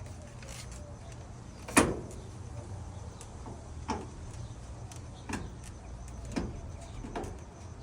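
Electric clothes dryer running: a steady low hum of the motor and turning drum, with five separate knocks at uneven spacing.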